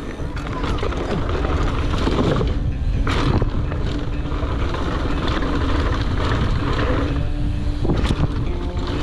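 Wind buffeting a helmet-mounted action camera's microphone over the rumble of mountain bike tyres rolling on a dirt trail, with a few sharp knocks from the bike over bumps.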